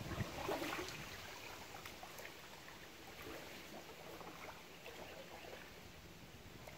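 Faint outdoor river ambience: an even low hiss with soft water sounds, after a brief low buffet of wind on the microphone at the very start.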